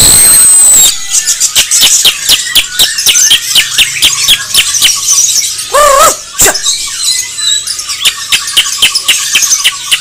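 Caged songbirds singing and chirping in quick, busy runs. A very loud, harsh call comes at the start, and a short, lower squawk with a wavering pitch about six seconds in.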